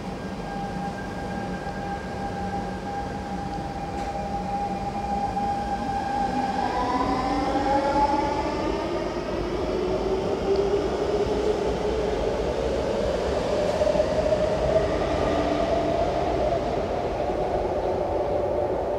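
R151 metro train pulling out of the platform: a steady electric whine, then from about six seconds in several whines climbing in pitch together as its traction motors accelerate the train. A low rumble of wheels on rail runs underneath.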